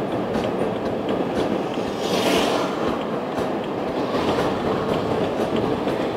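Road and tyre noise inside a moving car's cabin as it slows and turns into a forecourt, a steady rumble with faint evenly spaced ticks and a brief hiss about two seconds in.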